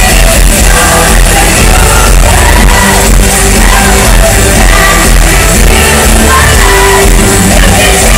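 Live pop-rock song played loud by a full band, with a female lead singer singing into a microphone over it.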